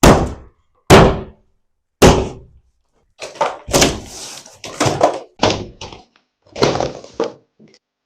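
Interior demolition of office walls: three heavy blows about a second apart, then a run of crashes lasting about four seconds.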